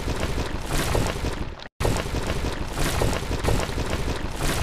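Wall-collapse sound effect: a steady rushing rumble of falling rubble that cuts out briefly a little under two seconds in, then resumes.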